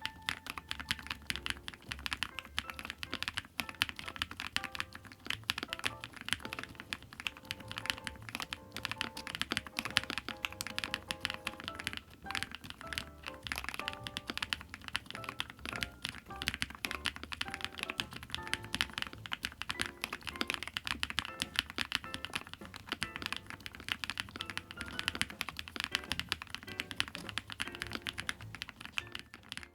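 Fast, continuous typing on an IQUNIX ZONEX 75, a 75% aluminium-cased, gasket-mounted custom mechanical keyboard: a dense stream of keystroke clacks, with background music underneath. The typing stops abruptly near the end.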